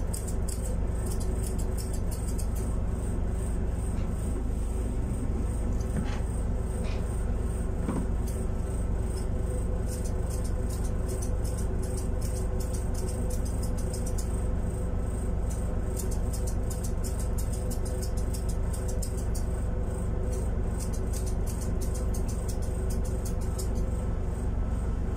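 Grooming scissors snipping cat fur in quick, irregular runs of sharp clicks, over a steady electric motor hum.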